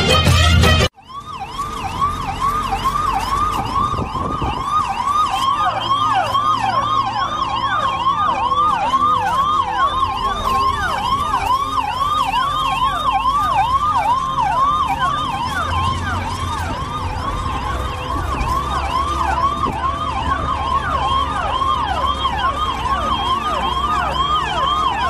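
Emergency-vehicle siren sound effect cutting in as the music stops, in a fast yelp whose pitch sweeps up and down about three times a second. From about five seconds in a second siren at a slightly different pace overlaps it. It is played back as part of a stage performance soundtrack.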